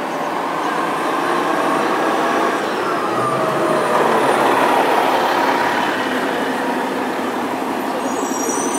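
City street traffic with a bus running close by, its engine and road noise growing a little louder about halfway through. A thin high squeal starts right at the end.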